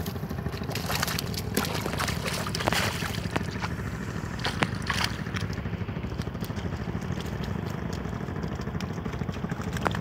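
Water sloshing and sharp clicks and knocks as fish are picked out of a net lying in shallow water, thinning out about halfway through, over a steady low rumble.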